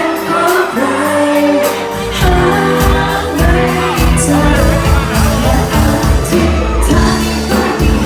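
A singer's voice carrying a melody over backing music. About two seconds in, a bass line and a steady drum beat come in underneath.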